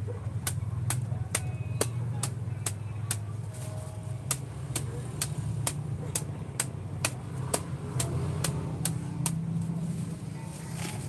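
Bus engine idling with a steady low rumble, under a sharp regular clicking of about two clicks a second.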